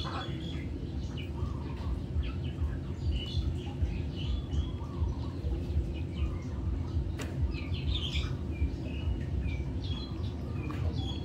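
Small birds chirping in short, scattered calls over a steady low background rumble, with a single sharp click about seven seconds in.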